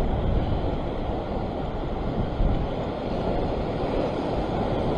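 Sea washing over a flat rock ledge at the water's edge, with wind buffeting the microphone: a steady low rush without breaks.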